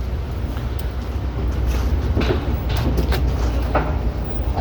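Steady deep rumble of vehicle traffic on a city street, with a few faint knocks.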